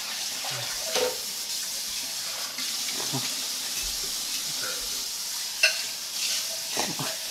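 Food sizzling in a frying pan, a steady hiss, with a few light clinks of a utensil and a sharper click about five and a half seconds in.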